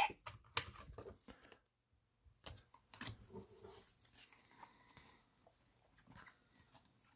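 Faint, scattered clicks and light taps of small plastic toy parts and cards being handled.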